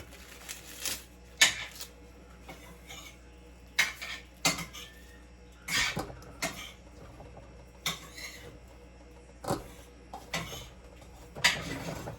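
Green corn husks being torn open and stripped from fresh ears by hand: a dozen or so irregular crackling, tearing rustles.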